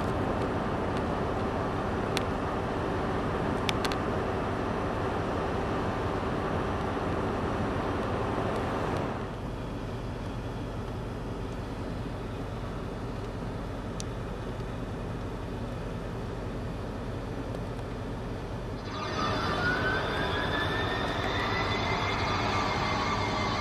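Steady rumbling hum with a constant low drone, dropping a little about nine seconds in. About nineteen seconds in, electronic music starts with a rising synth tone that levels off.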